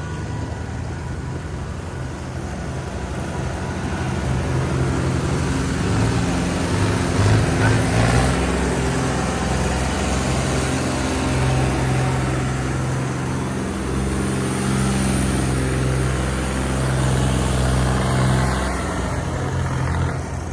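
A New Holland tractor's diesel engine running hard under load as it tows a string of tractors hitched one behind another. It gets louder a few seconds in and then holds a steady heavy note.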